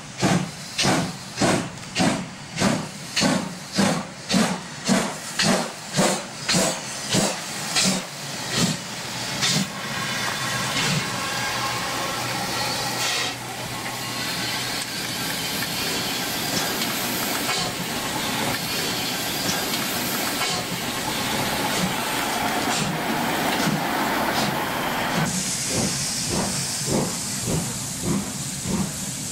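Class 52 steam locomotive 52 4867 working under steam: sharp exhaust chuffs, about two a second, for roughly the first eight seconds. They then blend into a steady hiss and rumble as the engine and its wagons pass. Fainter chuffs return near the end, with a higher hiss of steam coming in about three-quarters of the way through.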